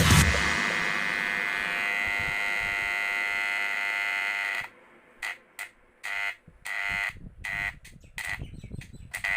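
Wahl electric hair trimmer motor running with a steady high buzz, then cutting off and on in a string of short bursts before running steadily again near the end.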